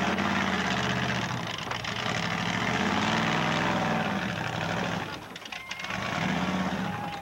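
Monster truck's engine revving in surges as it climbs onto and rolls over a junk car, easing off about five seconds in, then revving up again.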